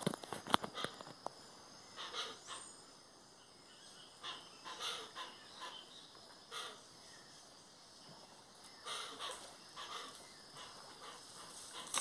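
Hoatzins giving short, hoarse, raspy calls at irregular intervals, every second or two, the constant racket this bird is known for. A few sharp clicks come right at the start.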